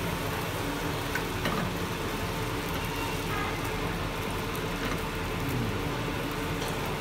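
Omelette sizzling in a frying pan over a gas flame, under a steady low rumble.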